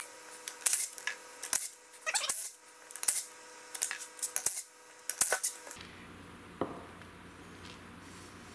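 Small steel parts of a differential clinking and tapping against metal in a quick, irregular run of light clinks. After about five and a half seconds the clinks stop, leaving a low steady hum with a couple of soft taps.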